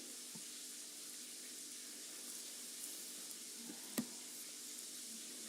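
Food sizzling steadily as it fries in a pan, with one sharp click about four seconds in.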